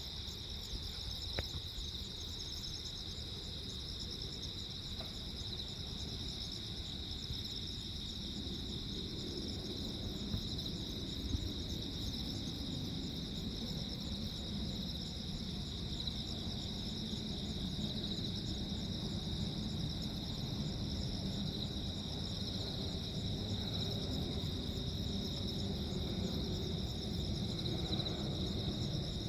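Crickets chirping steadily in a dense, pulsing chorus, with a low rumbling noise underneath that grows louder after the first third.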